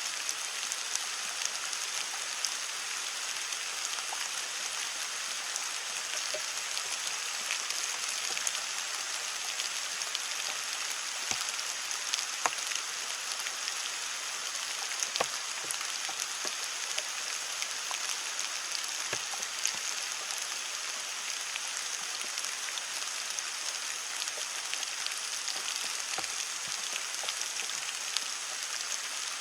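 Heavy rain falling on leaves: a steady hiss of rain with many single drops ticking through it, a few of them louder.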